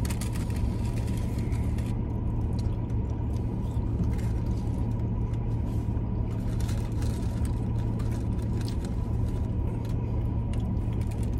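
Steady low rumble of a car idling, heard from inside the cabin, with a faint steady high tone and occasional light rustles and clicks of paper food wrappers.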